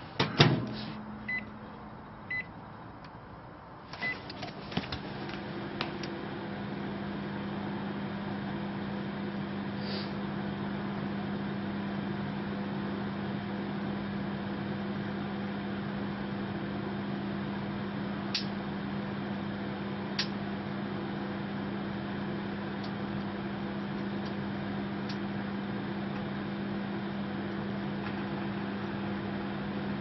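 Microwave oven door clicking shut, three short keypad beeps, then the oven starting about four seconds in and running with a steady low hum from its transformer and fan. A few faint sharp ticks sound over the hum, with valves from an old radio cooking inside.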